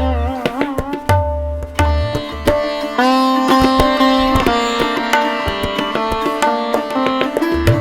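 Instrumental background music: a plucked string melody with sliding, bending notes over a steady drone, with deep drum strokes underneath.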